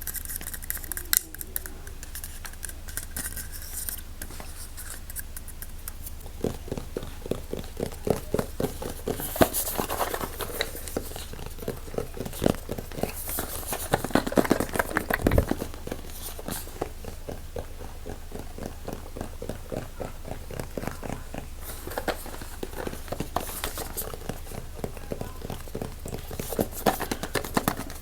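Fast ASMR triggers: rapid small clicks, taps and scratchy strokes on handled objects, coming in quick bursts over a faint low hum.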